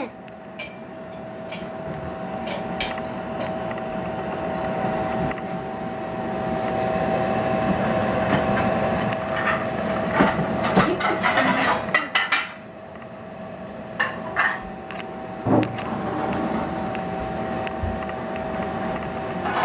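Minced meat frying in oil in a pan, a steady sizzle, while a wooden spatula stirs it and knocks against the pan several times, mostly in a burst about halfway through.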